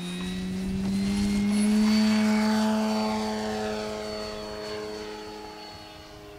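Electric scale RV-4 model's brushless motor driving a 17x12-inch propeller at takeoff power: a steady propeller buzz that rises a little in pitch and grows louder as the plane lifts off and passes, loudest about two seconds in, then fades as it climbs away.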